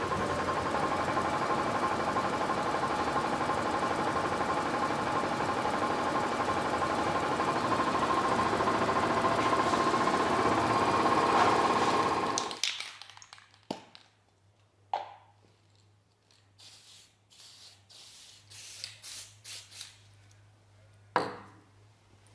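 Heavy machinery running with a steady, dense noise and hum, then shutting down abruptly about twelve seconds in. After it stops, a few separate knocks and light clicks are heard.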